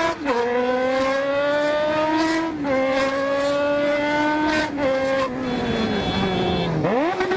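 Motorcycle engine accelerating hard through the gears. Its pitch climbs and drops sharply at each upshift, about a quarter second, two and a half seconds and five seconds in. Then it falls away as the throttle closes and rises again with a quick rev near the end, over steady wind rush.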